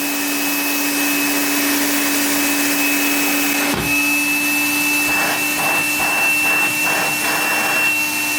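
Bagged vacuum cleaner motor running steadily under suction with a full dust bag, a high whine over the rush of air, with one brief knock a little before halfway.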